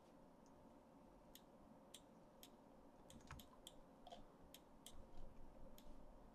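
Faint, irregular clicks of a computer mouse and keyboard, roughly a dozen, over a faint steady hum.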